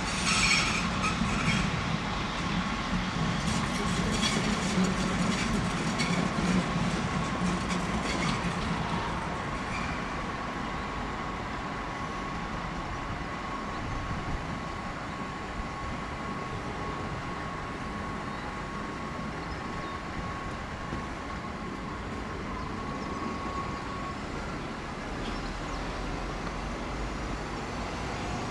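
ÖBB Cityjet (Siemens Desiro ML) electric multiple unit arriving on the station track. Rail rumble and wheel clicks are louder in the first nine seconds, then settle into a steadier running noise. A thin, steady high whine runs through the middle and stops about 24 seconds in.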